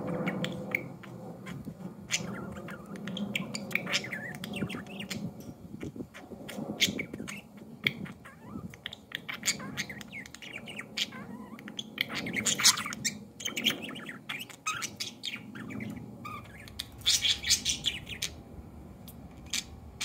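Budgies chattering: a stream of quick chirps and warbling calls, with louder bursts of calls about twelve and again about seventeen seconds in.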